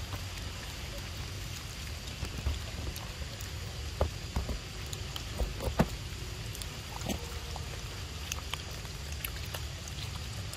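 Macaques feeding on mangoes: a few short smacks and knocks about four to six seconds in, over a steady low rumble and a faint high hiss of outdoor ambience.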